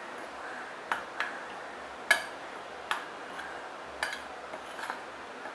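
Metal spoon clinking and scraping against a glass bowl while stirring dry gram flour: a handful of sharp, irregular clicks about a second apart, the loudest about two seconds in.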